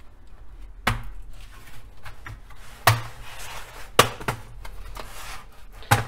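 Plastic snap-fit clips of an Acer Aspire ES1-531 laptop's bottom case popping loose as the case is pried open, with the screws already out. Several sharp snaps, with plastic rubbing and handling noise between them.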